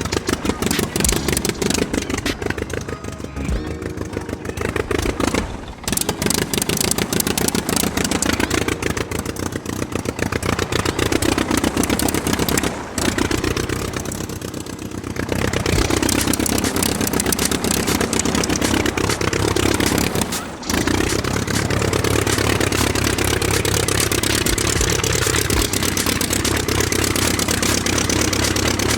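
Small homemade mini engine running with a fast, even knocking beat. Its speed rises and falls, and it breaks off briefly about 6, 13 and 21 seconds in.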